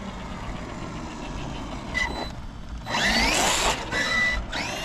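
Hobbywing XeRun XR8 ESC and G3 brushless motor in a 1/10-size RC monster truck running on a 3-cell LiPo, whining and rising in pitch as the truck accelerates hard about three seconds in, then again near the end.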